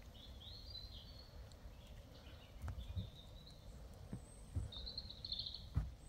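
Faint small-bird calls over low outdoor rumble: several short high chirps, with a quick run of notes about five seconds in. A few soft low knocks come in the middle.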